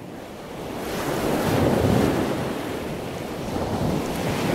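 Ocean surf: waves rushing in, fading in and swelling to a peak about two seconds in, then surging again near the end.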